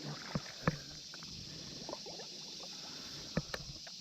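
Water sloshing and splashing as a person wades through a shallow, muddy creek, with a few sharp splashes, the strongest about half a second in and a quick pair near the end, over a steady high hiss.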